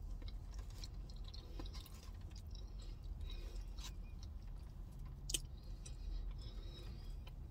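Close-up chewing of a mouthful of chili cheese fries, soft and wet, with a few small sharp clicks, the most distinct just past five seconds in. A steady low hum runs underneath.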